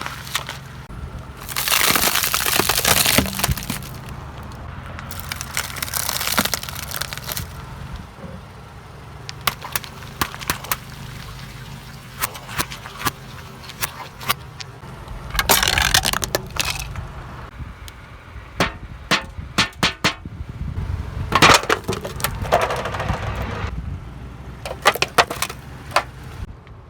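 Things cracking and breaking under a car's tyres, with the car's engine running low underneath. There are several loud bursts of crunching and many sharp cracks and snaps in between.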